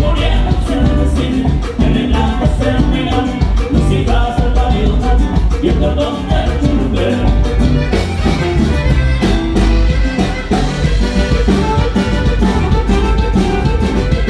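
Norteño band with saxophone playing a huapango, an instrumental passage over a steady bass line.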